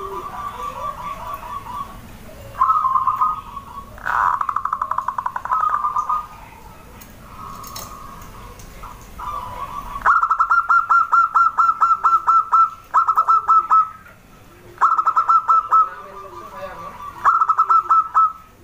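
Zebra dove (perkutut) singing: repeated phrases of rapid staccato cooing notes, the phrases growing louder and sharper about halfway through.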